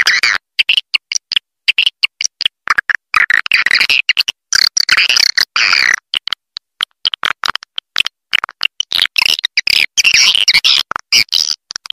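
Swiftlet calls: bursts of high chittering twitters broken by many sharp clicks and short gaps. This is a swiftlet roosting-call lure recording, the kind played to draw swiftlets in to roost and nest.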